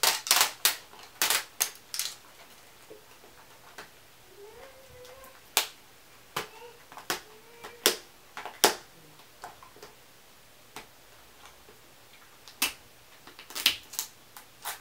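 Plastic wrapping of a LOL Surprise ball being picked at and peeled off by hand: irregular sharp crackles and clicks, a quick run of them at the start, scattered ones in the middle and another cluster near the end.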